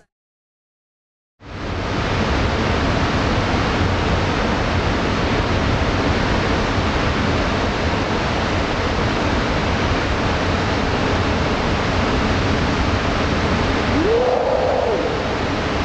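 Waterfall pouring into its plunge pool: a loud, steady rush of falling water that starts after about a second and a half of silence. A brief rising tone sounds over it near the end.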